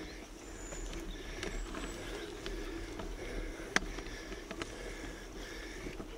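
Mountain bike riding along a dirt forest singletrack: steady rolling noise from the knobby tyres, with scattered clicks and knocks as it goes over the trail, one sharper click a little before the middle.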